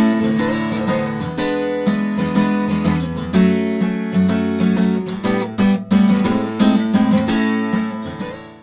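Folding carbon-fibre acoustic travel guitar from Journey Instruments being strummed in a run of chords. The playing fades and stops at the very end.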